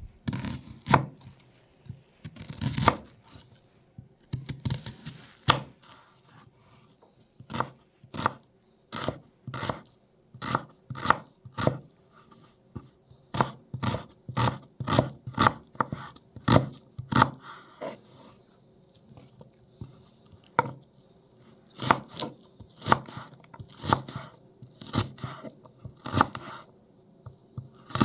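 Knife chopping food on a cutting board: a long run of separate sharp strokes, about one to two a second, with short pauses between runs.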